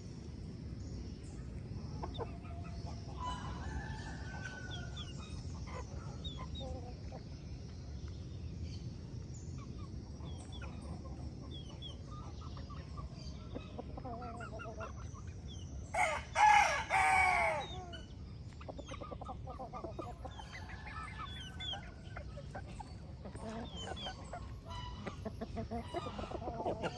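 Hens clucking in short, scattered calls throughout, over a steady low background hum, with a rooster crowing once, loudly, about two-thirds of the way through.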